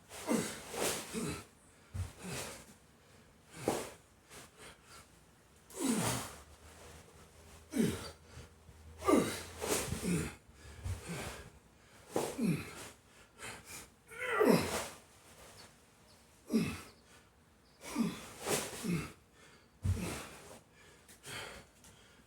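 A man's forceful exhales and grunts of effort while lifting a heavy sandbag, one every second or two, each dropping in pitch. A couple of dull thuds come through, about two seconds in and near the end.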